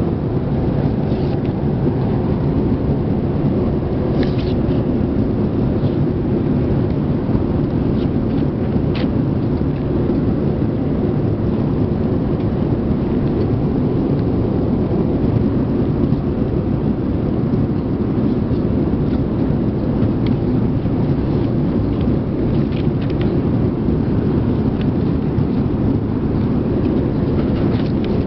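Steady low rumble of a Boeing 787-8 airliner's jet engines and airflow heard inside the cabin, holding an even level throughout.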